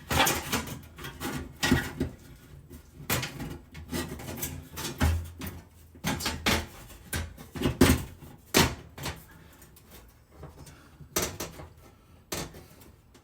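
Irregular knocks and metallic clatters of tools and the loosened heating element being handled inside an oven cavity, while a burned-out oven element is being removed.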